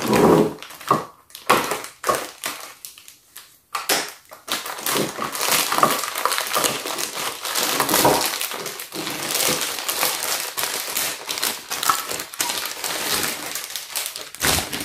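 Scissors snipping through clear plastic packaging a few times, then a thin plastic bag crinkling and rustling continuously as a plastic dollhouse roof piece is unwrapped.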